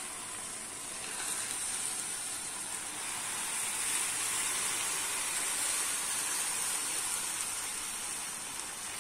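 Cold sugar syrup poured in a thin stream onto hot, just-baked baklava in a metal baking tin, making a steady hiss as it hits and soaks into the hot filo pastry.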